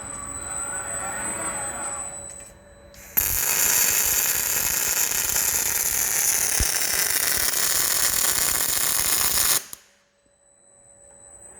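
Robotic MIG/MAG welding: the robot arm's servo motors whine with gliding pitch as it moves. About three seconds in, the welding arc strikes abruptly and gives a loud, steady crackling hiss for about six and a half seconds, with one low pop midway, then cuts off sharply as the arc stops.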